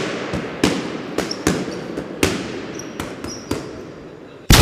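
A string of sharp bangs, roughly one every half second, each with an echoing tail, then a much louder, sustained blast with a deep rumble near the end.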